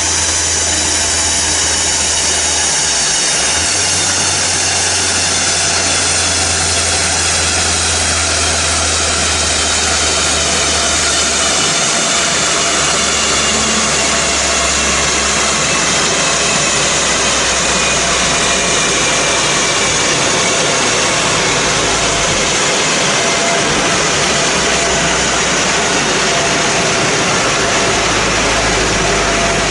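Chassis dyno cell with a VW Golf GTI on the rollers: a steady, loud rush of fan and roller noise, with high whines that fall slowly in pitch, like the rollers spinning down.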